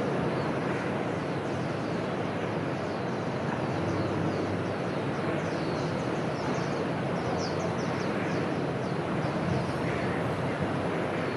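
A steady rushing background noise, with a run of quick, high, falling bird chirps in the middle.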